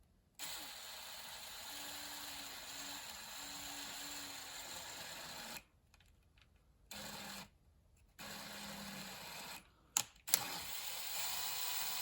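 Power drill working the exhaust-bolt hole in a chainsaw cylinder, run in four bursts with pauses between: a long first run of about five seconds, then three shorter ones, with two sharp clicks just before the last run.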